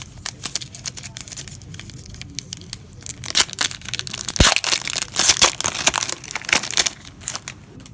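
Foil trading-card pack wrapper being torn open and crinkled, densest and loudest through the middle stretch, with one sharp tap about four and a half seconds in.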